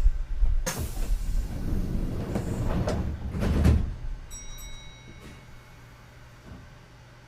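Kintetsu 2430-series train's sliding doors closing: a sharp thud about a second in, then a rush of noise with a second heavy thud around three and a half seconds in. A few brief steady high tones follow before the car settles to a low rumble.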